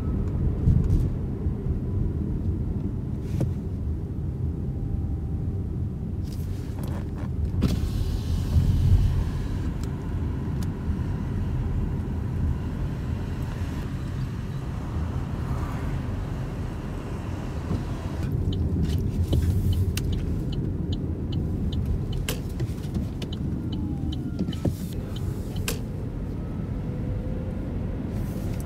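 Opel Mokka-e electric car driving, with a steady low road and tyre rumble and a faint motor whine that slides in pitch. Scattered short ticks can be heard over it.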